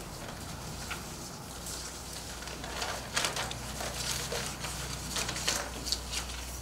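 Quiet room tone with a steady low hum; from about three seconds in, scattered small clicks and rustles of things being handled.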